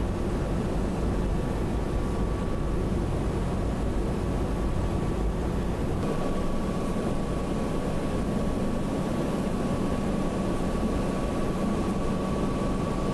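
Steady cabin noise inside an E-3A AWACS aircraft (Boeing 707 airframe) in flight: an even low drone of engines and airflow with a thin steady tone above it.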